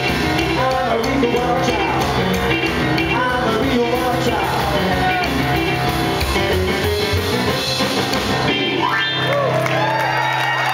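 Live rock and roll band playing: pounding piano on a stage keyboard, with drums. A little over eight seconds in, the band stops on a held final chord, and shouts from the audience rise over it.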